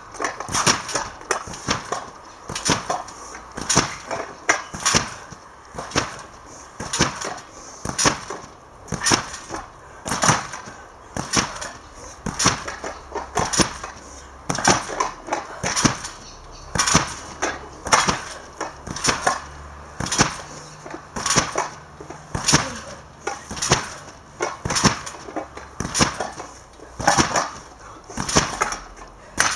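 A bike and rider landing on a trampoline again and again, a sharp clattering impact about once a second, some landings coming as quick double hits.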